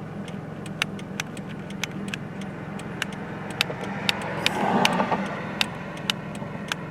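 Car engine idling steadily, heard from inside the cabin, with scattered irregular clicks and taps and a brief swell of noise about two-thirds of the way through.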